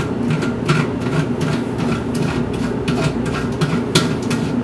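A steady low mechanical hum, with several short clicks and knocks as a plastic screw cap is handled and threaded onto a fermenter jug.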